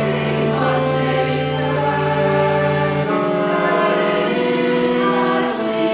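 Choir singing sustained chords with saxophones playing along; a low held bass note underneath drops out about three seconds in.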